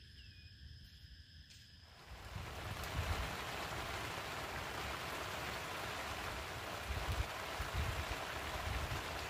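Steady rain hissing down at the waterside, with wind rumbling on the microphone. It starts suddenly about two seconds in, after a quiet stretch with a faint high steady tone.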